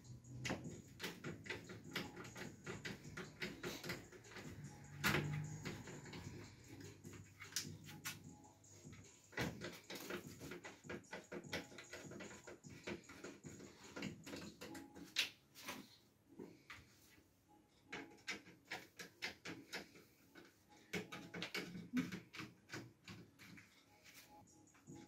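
Irregular small clicks and ticks of a screwdriver turning out screws from the plastic housing of a third brake light.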